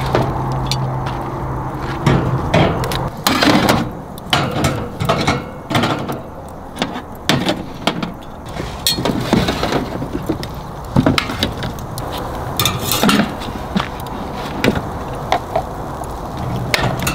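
Oysters in the shell being set down one after another on a metal grill grate with tongs: irregular clacks and scrapes of shell against metal.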